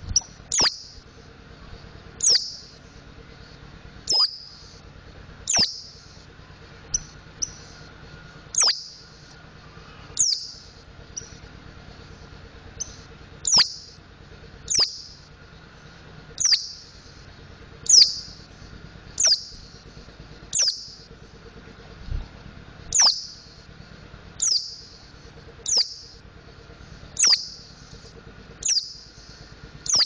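Mountain white-eye calling single sharp, high notes that slide downward, repeated about every one and a half seconds.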